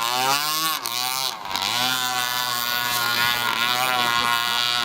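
Petrol two-stroke boat engine running at high revs with a buzzing note. Its pitch swoops up and down in the first couple of seconds, dipping about a second in, then holds fairly steady.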